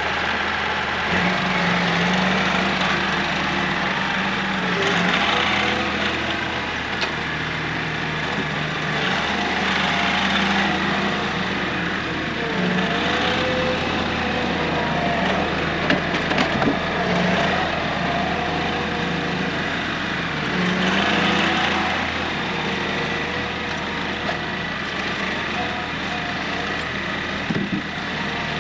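Kioti CK3510 SE compact tractor's three-cylinder diesel engine running, its pitch rising and falling as the tractor drives and works a root grapple loaded with logs. A couple of sharp knocks stand out, one about halfway through and one near the end.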